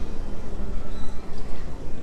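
Busy indoor ambience: a steady low rumble with indistinct background voices.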